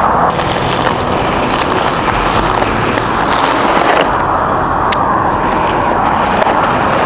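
Steady wind noise buffeting a helmet-mounted camera's microphone.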